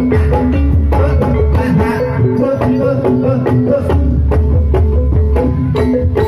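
Live Banyumasan gamelan music: fast hand-drum strokes over repeating struck metal notes, with a deep bass boom that swells and fades.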